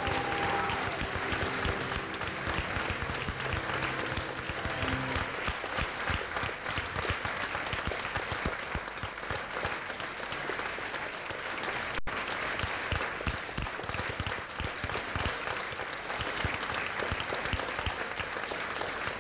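Audience applauding steadily, with the last held notes of music fading out over the first few seconds.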